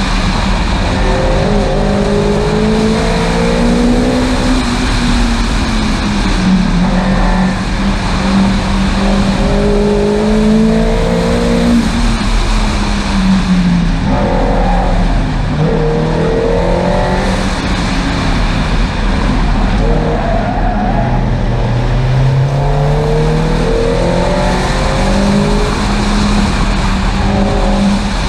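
Onboard sound of a car driven hard: the engine climbs in pitch under acceleration, then drops back again and again as it shifts gears and lifts off, over steady wind and road noise.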